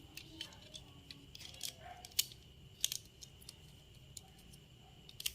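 A series of scattered sharp clicks and light rattles, the loudest about two seconds in, with a close cluster near three seconds and another pair near the end.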